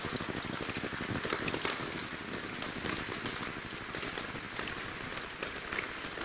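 Falling water drops pattering: many small irregular drips over a steady hiss.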